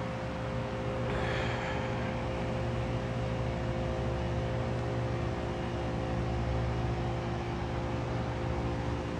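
A steady mechanical hum with several held low tones over a noisy hiss, with a brief rustle about a second in.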